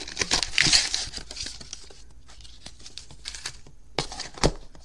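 Paper and card packaging rustling and crinkling as trading-card packs, envelopes and packing paperwork are handled, with scattered small clicks and taps and one sharper knock near the end.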